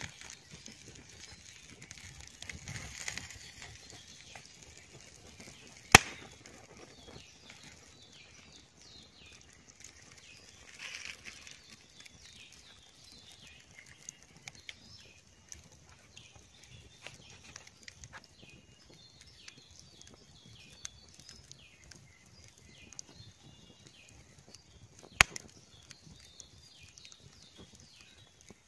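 Open wood fire crackling under a spit-roasting chicken: scattered small crackles, with two sharp, loud snaps, one about six seconds in and one near the end. Faint high chirps sound in the background.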